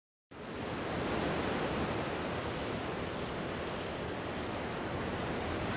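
Ocean surf: a steady rushing wash of waves that starts a moment in and holds level.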